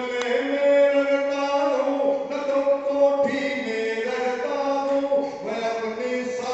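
A man singing verses of a poem into a microphone in a chant-like melody, holding long notes that change pitch every second or so.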